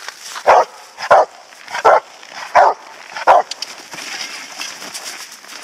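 Rottweiler barking at the helper hidden in an IPO blind, the hold-and-bark: five loud barks, a little under a second apart, then it stops.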